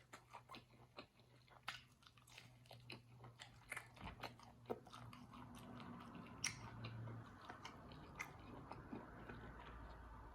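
Close-up chewing and biting of food, many small irregular wet mouth clicks, faint, over a low steady hum.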